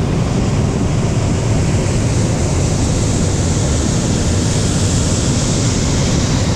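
Hot air balloon propane burners firing: a loud, steady rushing noise whose hiss grows stronger about a second and a half in and eases near the end.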